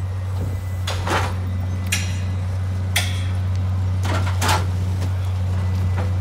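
Track-laying machine's engine running with a steady low drone, with a few sharp metal clanks about a second apart in the first three seconds.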